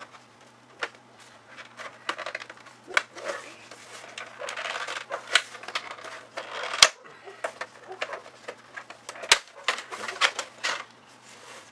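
Plastic back cover of a Westinghouse LCD TV being worked apart by hand: irregular clicks and scraping as its snap clips are pried loose, with two sharper snaps about seven and nine seconds in.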